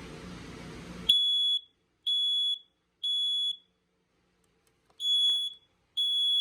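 Smoke alarm sounding its test in the temporal-three pattern: three loud, high-pitched beeps about a second apart, a pause, then the next group of beeps.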